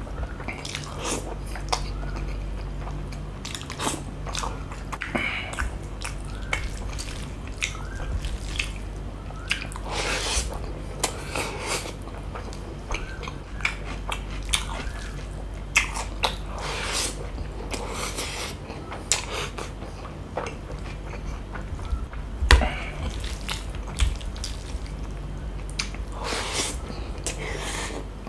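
Close-miked chewing and wet mouth sounds of a man eating rice and curry by hand: frequent smacking clicks and squelches, over a low steady hum.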